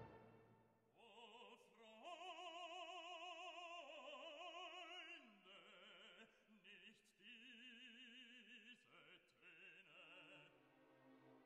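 Operatic singing: a classical voice holding long notes with a wide vibrato, moving from note to note every second or two, quietly as background music.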